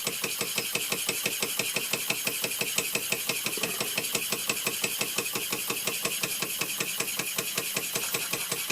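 Bing 10/12/2 live-steam toy engine running steadily under steam, with a fast, even beat of short pulses that keeps a constant speed.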